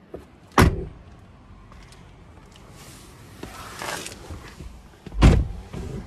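Two loud thumps about four and a half seconds apart, with a soft rushing noise between them.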